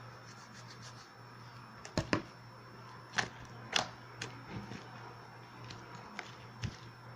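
Slime being squeezed and handled, giving irregular sticky clicks and pops, several louder ones about two to four seconds in, over a faint steady hum.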